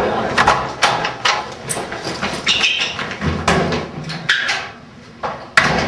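A run of irregular footsteps and knocks, about two or three a second, with handling and room noise between them.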